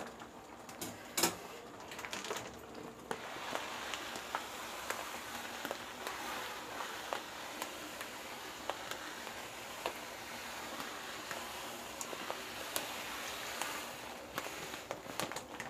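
A few sharp snips and crinkles as scissors cut open a plastic bag of sugar, then, from about three seconds in, a steady hiss with small ticks as granulated sugar pours from the bag into a pot of cooked vermicelli, easing off near the end.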